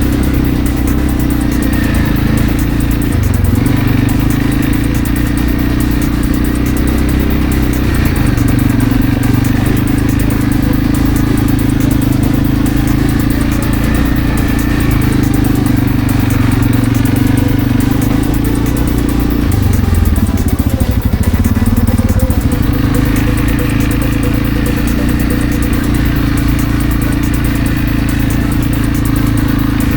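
A vehicle engine running continuously and loudly. Its pitch shifts in steps several times, dips about two-thirds of the way through, then picks up again.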